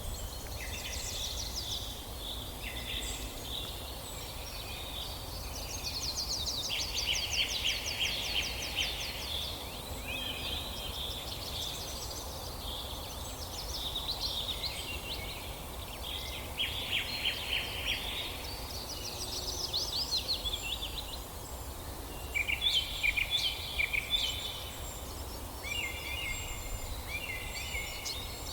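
Birds singing in short, quickly repeated trilled phrases, one after another, over a steady low rumble.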